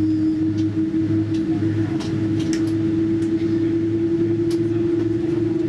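General Electric GEnx engine of a Boeing 787-9 starting up, heard from inside the cabin: a steady drone whose tone creeps slightly higher near the end, over a low pulsing throb and a few faint clicks.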